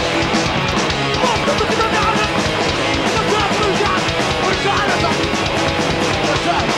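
A hardcore punk band playing loud and fast in a live recording: distorted electric guitars, bass and rapid drumming with crashing cymbals.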